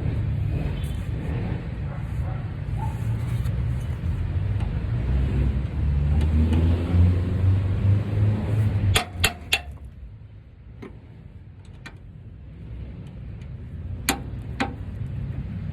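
A low vehicle rumble runs for about nine seconds and then drops away. Around that point there is a quick run of four sharp metal clicks, and two more come near the end: tool clinks on the battery-terminal and ground-cable hardware.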